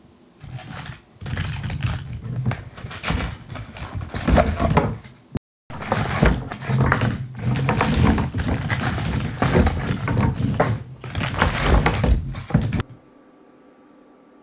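Plastic wrappers of Ritter Sport mini chocolate bars rustling and clattering as handfuls of the bars are scooped and shuffled in paper boxes. There is a brief break just before halfway, and the sound stops abruptly near the end.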